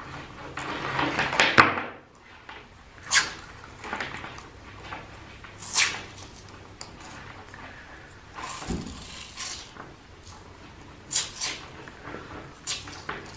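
Hands handling a car remote-start wiring harness and a roll of black cloth harness tape. There is rustling and handling noise, a rasping sound about a second in that cuts off sharply, and a scatter of sharp clicks and taps as wires and plastic fuse holders knock together.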